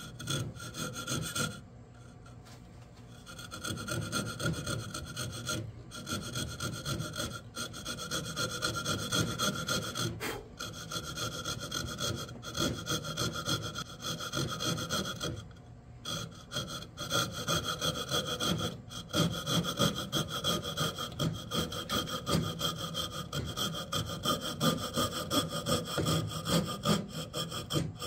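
Coping saw cutting by hand through the wall of a white-pine bowl in steady back-and-forth rasping strokes, pausing briefly about two seconds in and again about halfway through. The cut is the yarn slot of a yarn bowl.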